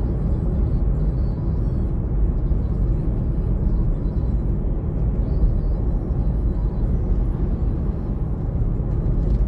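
Steady road and engine noise of a car driving at highway speed, heard from inside the cabin: an even, low rumble with no breaks.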